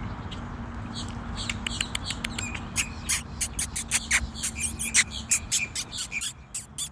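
Birds calling in a quick run of short, sharp chirps and clicks that starts about a second and a half in and keeps going almost to the end, over a low steady hum.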